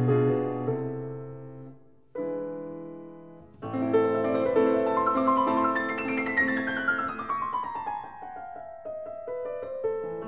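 Solo piano music. A chord dies away about two seconds in and a second chord is struck, then a flowing passage begins, with a long falling run of notes in the second half.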